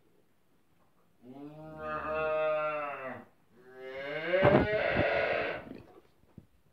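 Calf mooing twice in long calls, the second louder and rising in pitch.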